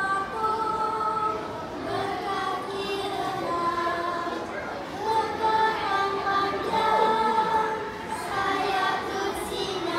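A group of young children singing together, holding long notes.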